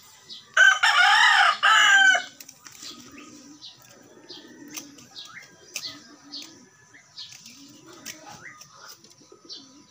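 Rooster crowing once, a loud call lasting about a second and a half that starts about half a second in.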